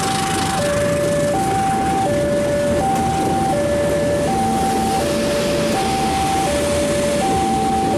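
Railway level-crossing warning alarm sounding a steady two-tone signal that alternates low and high, each tone held about three-quarters of a second. Beneath it, the wheels of passenger coaches rumble and clatter past on the rails.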